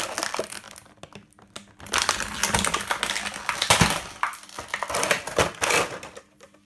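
Clear plastic blister packaging crackling and crinkling as it is handled and pulled, with a dense run of sharp crackles from about two seconds in that stops near the end.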